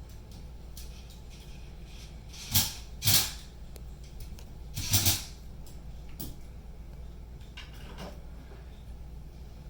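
Three short, loud scrapes from hand work on the drywall ceiling, two close together a few seconds in and a third about two seconds later, over a low steady hum.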